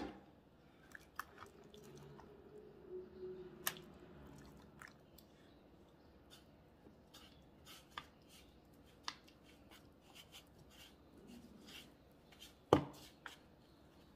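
Hands pressing and turning turkey pieces in a bowl of dry flour-and-breading mix: soft crunching and rustling with scattered light clicks, and one sharper knock near the end.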